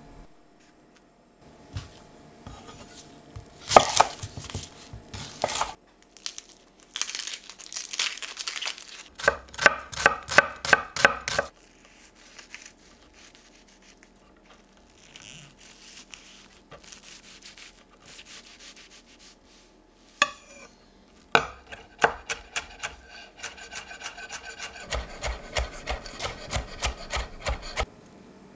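Chef's knife slicing and mincing a shallot on a wooden cutting board: runs of quick knife strikes on the board, about five a second at their fastest, with a quieter pause in the middle.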